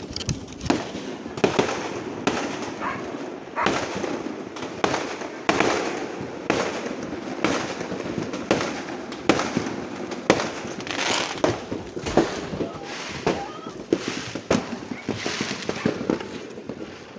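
Fireworks going off: sharp bangs roughly once a second, over a steady din of more distant bursts.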